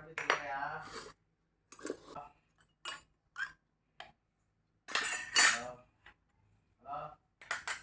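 Tableware clinking in short, separate knocks as a meal is eaten, between a few short vocal sounds, the loudest about five seconds in.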